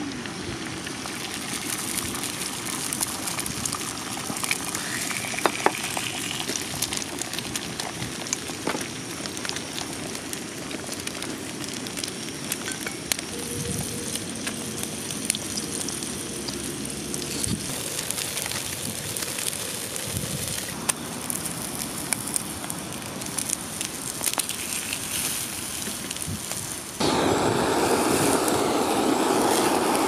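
Food sizzling as it cooks, with many small crackling pops over a steady hiss. Near the end a louder, steadier rushing noise comes in abruptly.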